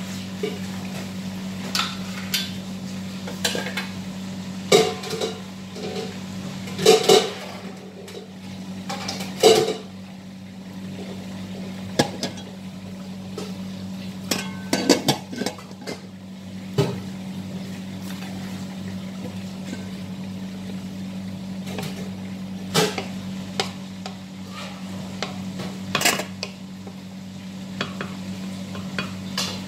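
Metal spatula and utensils clinking and scraping against a wok and pots while food is stirred and fried, with an aluminium pot lid clanking about halfway through, over a steady low hum.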